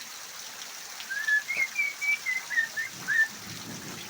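Parrot whistling a quick run of short notes, some sliding up or down in pitch, starting about a second in.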